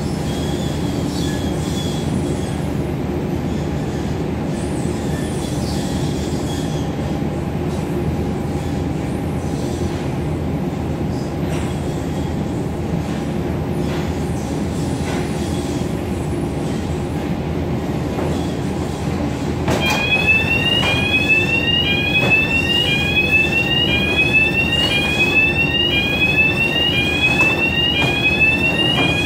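Airport baggage conveyor machinery running with a steady rumble and rattle. About two-thirds of the way in, an electronic warning alarm starts, repeating a short rising tone about once a second.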